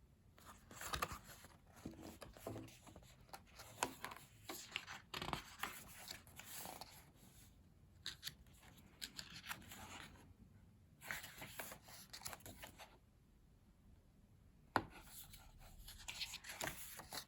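Faint paper rustling and sliding in short bursts as the pages of a photobook are turned and handled, with a sharp tap near the end.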